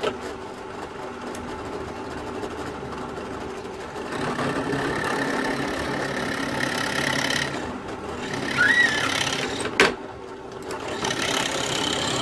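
Electric drill running, boring bolt holes through pallet wood. It starts abruptly, gets louder a few seconds in as it bites, and there is a sharp knock and a brief drop near ten seconds.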